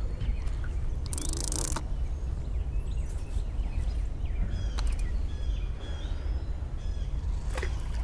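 Small birds chirping repeatedly in short, downward-sweeping calls over a steady low rumble. A brief hiss sounds about a second in, with a few faint clicks later.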